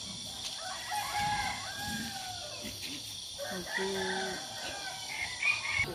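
Farm animals calling: a run of short, pitched calls, more of them in the second half.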